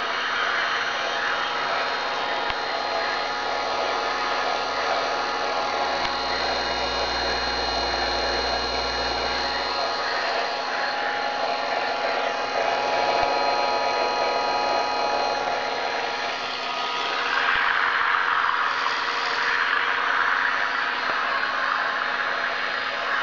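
Electric motor of a ParkZone Bf 109G RC model plane spinning its propeller on the ground, a steady whine with many tones. It swells louder about seventeen seconds in.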